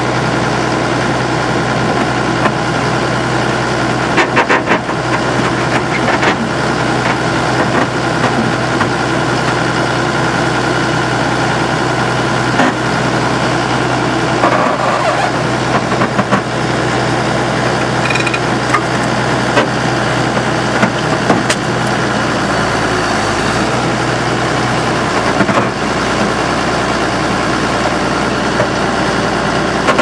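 Al-Jon Model 400 logger/baler running steadily as its hydraulic cylinder pushes the ram across the baling chamber, with scattered metallic clicks and knocks. The low hum changes note about three-quarters of the way through.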